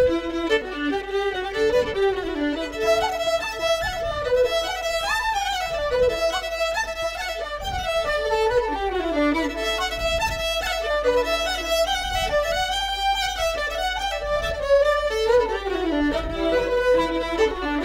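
Background music: a fiddle playing a quick-moving melody.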